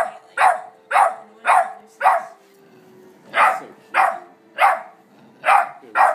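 A dog barking in a run of short, sharp barks about two a second: five barks, a pause of about a second, then five more.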